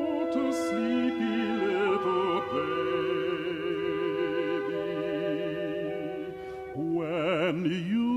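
Classical art-song performance: a male bass-baritone voice holding long notes with wide vibrato over sustained accompaniment, swelling louder about seven seconds in.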